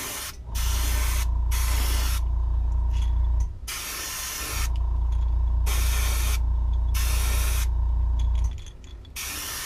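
An airbrush spraying thinned pearl white paint at about 35 psi, in several short bursts of hiss that start and stop every second or so. A louder low drone runs underneath, breaks off briefly about three and a half seconds in, and stops near the end.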